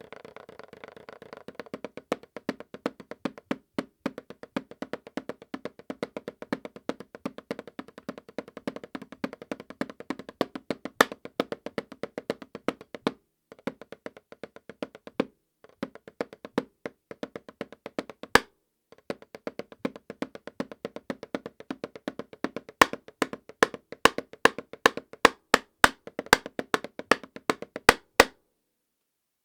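Drumsticks playing rapid strokes on a practice pad with a Remo Silentstroke mesh head, giving a dull, muted tap with little ring. The playing breaks off briefly a few times, grows louder near the end with a run of sharper accented hits, then stops.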